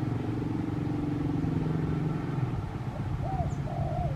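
A steady low engine drone that eases slightly a little past halfway, with a few short faint higher calls near the end.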